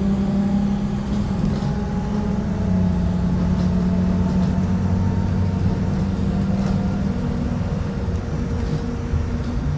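A 2018 Blue Bird Vision school bus driving along, heard from inside: a steady low engine hum over road rumble, its pitch shifting slightly a few times.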